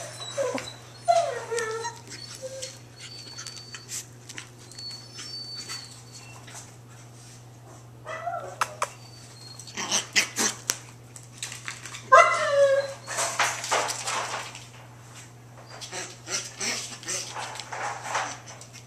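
Chihuahua puppies playing: a few short high yips falling in pitch, about a second in, around eight seconds and around twelve seconds, amid scuffling and quick clicks of small claws on a tile floor. A steady low hum sits underneath.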